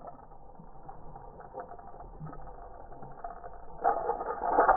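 Spinning reel being cranked, its gears whirring as line is wound in on a hooked fish. About four seconds in the sound gets louder as the fish splashes at the surface.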